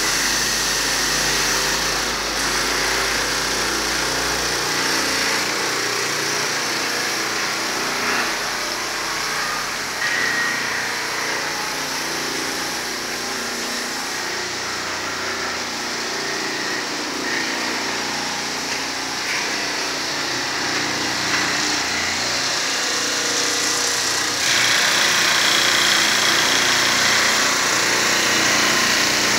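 Multi-head stone edge polishing machine running: several electric motors driving wet polishing heads, a steady mechanical hum and grind that gets louder about three-quarters of the way through.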